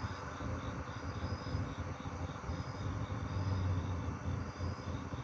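Crickets chirping: one steady chirp repeating about four to five times a second, with a second, higher-pitched trill in short bursts about once a second, over a low rumble.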